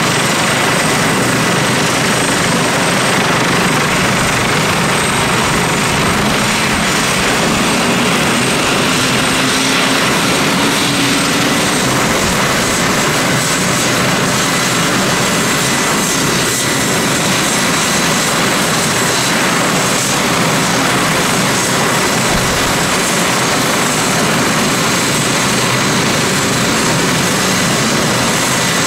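Airbus H145 D3 helicopter running on the ground with its twin Safran Arriel 2E turboshaft engines and five-blade main rotor turning: a loud, steady turbine whine over constant rotor and engine noise.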